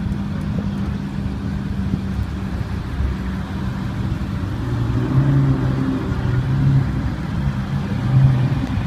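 Supercar engines running at low revs as an Audi R8 crawls past close by in a slow queue. A second engine note joins about five seconds in.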